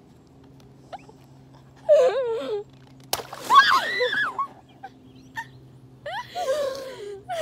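Girls squealing and laughing. About three seconds in, a jumbo water balloon bursts with a sharp pop, followed by a loud shriek and more laughter.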